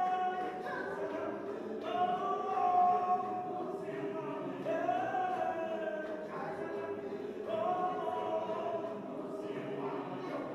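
A choir singing a cappella, a hymn in long held notes, with a new phrase every two to three seconds.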